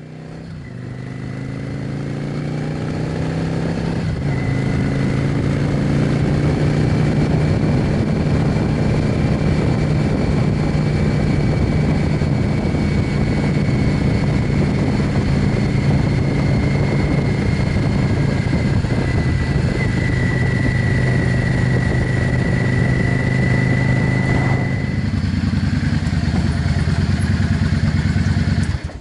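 Yamaha V Star 650's air-cooled V-twin engine running as the motorcycle is ridden down a road, rising in loudness over the first few seconds and then holding steady. Near the end the engine note drops lower as the bike slows down and rolls up to a shed.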